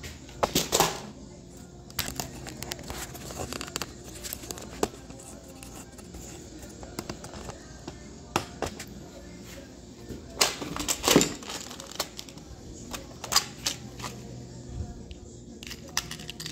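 Small clicks and rattles of copper crush washers being sorted in a plastic organizer box and a small bolt being handled, with the loudest clatters about half a second in and again around ten to eleven seconds. Music plays in the background.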